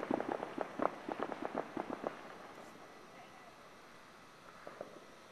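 Fireworks crackling: a rapid, irregular run of sharp pops and cracks that fades out about two seconds in, followed by a few faint pops near the end.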